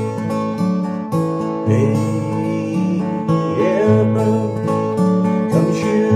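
Handmade all-solid acoustic guitar playing a chord progression as a song's introduction, each chord ringing out and changing about every half second to a second.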